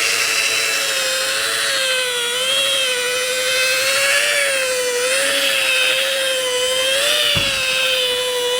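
Electric polishing tool's motor running steadily, its whine wavering slightly in pitch as the pad works compound into the car's clear coat to cut out bird-dropping etching. A single low thump about seven seconds in.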